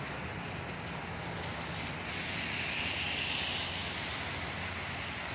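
Rear-loader garbage truck's diesel engine running as it pulls away on wet pavement, a steady low hum under tyre hiss from the wet road. The hiss swells about two seconds in and eases again a second or so later.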